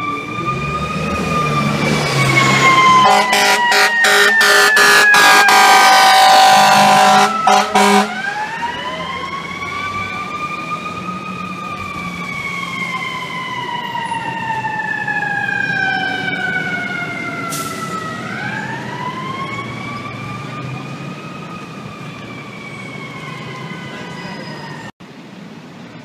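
Fire truck's siren sweeping in long cycles, three times, each rising quickly and falling slowly. From about three seconds in, the truck's air horn blasts in a rapid string of short bursts for about five seconds, the loudest part. The sound drops off suddenly about a second before the end.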